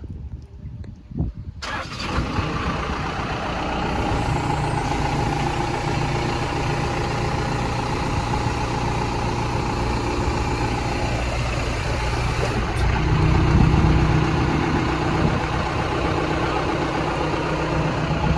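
Backhoe engine running steadily after cutting in abruptly under two seconds in, with a brief rise in loudness about three-quarters of the way through.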